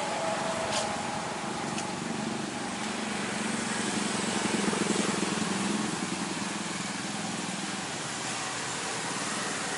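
Street traffic noise with a small motorbike engine running close by. It swells to its loudest about halfway through, then fades.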